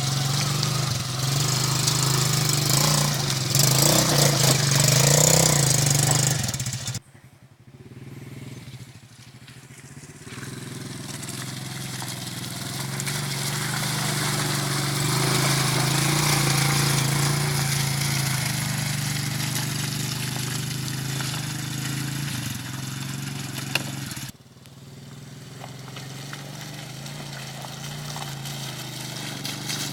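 125cc ATV engine running steadily. Its sound drops off abruptly about seven seconds in and again near the end, each time building back up gradually.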